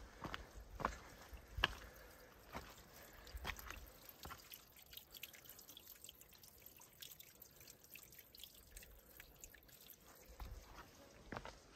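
Hiker's footsteps on a rocky dirt forest trail: sharp steps about once a second for the first few seconds, then fainter small ticks and scuffs.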